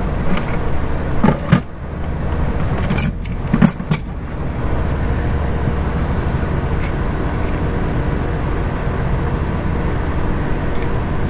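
Sharp clicks and knocks from hands fitting a coil-pack wiring harness onto the coil packs. There are a handful in the first four seconds, over a steady low rumble.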